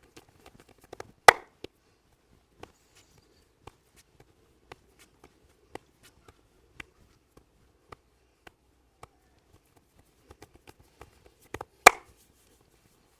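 Hands tapping during a head massage: light, evenly spaced taps about two a second, with two loud, sharp smacks, one about a second in and one near the end.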